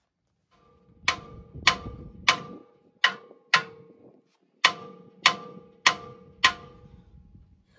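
Hand hammer striking the steel steering pivot arm of a Toyota 80 Series Land Cruiser, nine blows with a short metallic ring after each: five blows, a brief pause, then four more. The blows are meant to shock the old tie rod end's tapered stud loose from the arm.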